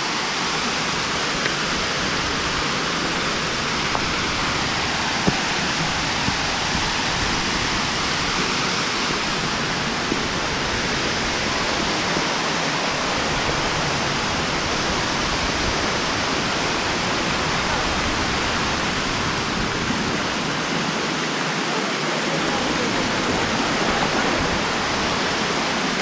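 Waterfall and the creek below it rushing: a steady, even hiss of falling and flowing water.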